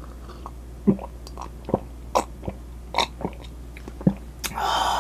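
A man gulping a drink from a glass mug: a run of separate wet swallowing clicks, about eight over three seconds. Near the end comes a louder burst of breathy noise lasting under a second.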